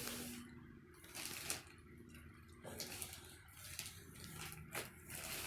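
Packaging being handled and opened: irregular rustling and crinkling, with a couple of sharp clicks.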